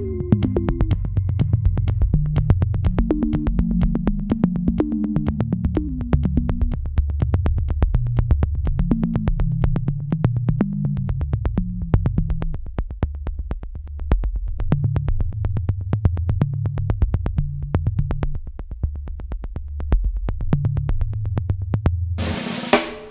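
Electronic background music: a synth bass line moving under a fast, even ticking beat, swelling into a new, fuller section just before the end.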